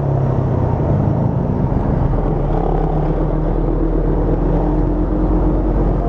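Steady wind and riding noise inside a motorcycle helmet, picked up by a microphone wired into the helmet, with the visor closed and opened just a crack.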